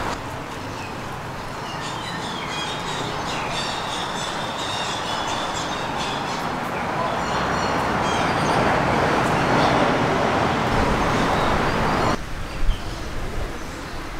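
Outdoor ambience: a steady rushing noise, like wind or distant traffic, with small birds chirping high above it from about two to seven seconds in. The rushing drops away abruptly near the end.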